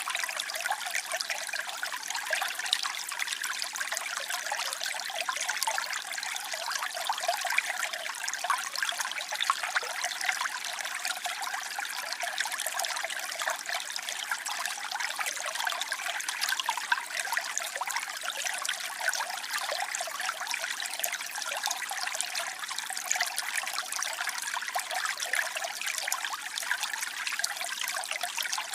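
Waterfall cascading and splashing steadily, a dense hiss of falling water and spray that sits high, with almost no deep rumble.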